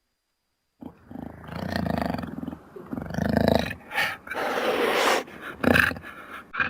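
Jaguar vocalising: after a moment of silence, two drawn-out low growling calls start about a second in, followed by several shorter, harsher calls and a rasping snarl.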